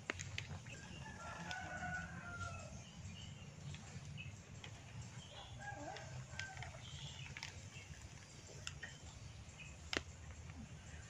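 A rooster crows twice in the background, each crow lasting about a second and a half, over a steady low hum. Sharp snaps sound every second or so from hair strands being pulled in hair cracking, the loudest near the end.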